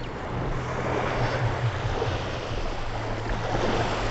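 Small sea waves washing onto a sandy shore, with wind buffeting the microphone and a steady low hum underneath.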